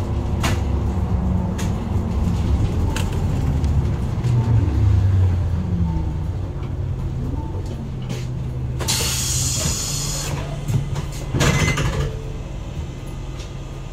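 Isuzu Erga Mio medium-size bus's four-cylinder diesel engine running as the bus drives, heard from inside the cabin, its pitch rising and shifting about four to seven seconds in. A burst of compressed-air hiss lasts over a second about nine seconds in, with a shorter one about two seconds later.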